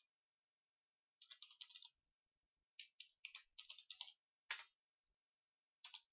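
Quiet computer keyboard typing in quick runs of keystrokes, then a single harder keystroke about four and a half seconds in, the Enter key sending the command. Typing starts again near the end.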